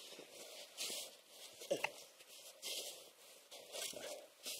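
Snow shovel scooping and scraping packed snow in a cramped snow cave, one short stroke about every second.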